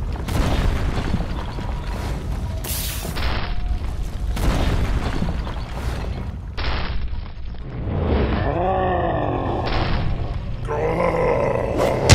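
Cartoon fight sound effects: a series of heavy booms and blasts, with a character's grunt about eight seconds in.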